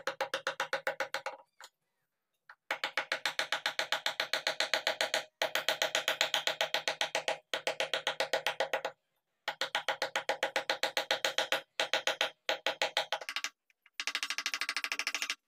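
Wooden mallet rapidly tapping a wood-handled chisel as it cuts into a carved wooden panel: fast, even knocks, several a second, each with a short ringing tone, broken by a few abrupt silent gaps.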